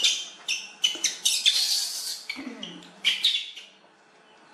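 Baby macaque giving a rapid run of short, high-pitched squeaks and squeals, one longer cry in the middle, that die away after about three and a half seconds.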